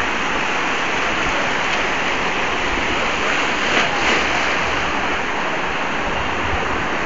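Sea surf breaking and washing through the shallows: a steady, loud rush of waves.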